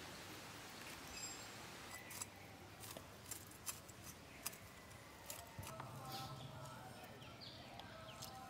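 A whole carp being scaled by hand against a boti blade: a faint, irregular run of sharp scraping clicks as the scales come off.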